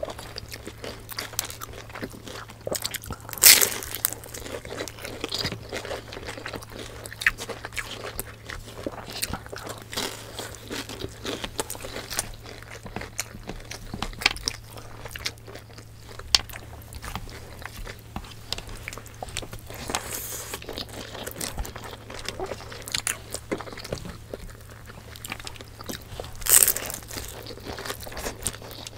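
Close-miked crunching and chewing as crispy fried lumpia (Filipino spring rolls) are bitten into and eaten, with soft mouth sounds between bites. The loudest crunches come about three and a half seconds in and again near the end.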